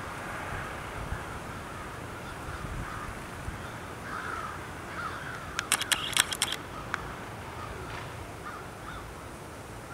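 A flock of American crows cawing, many short calls overlapping over a steady background hiss. A quick run of about eight sharp clicks a little past halfway is the loudest thing.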